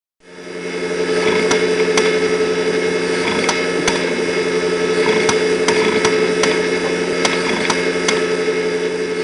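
A failed hard disk drive running with a steady hum and whine, its heads clicking sharply and irregularly about once or twice a second. This clicking is a typical sign of a crashed drive.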